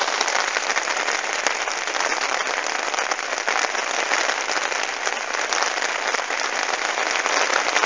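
Heavy rain pouring down onto a lake, a steady dense hiss.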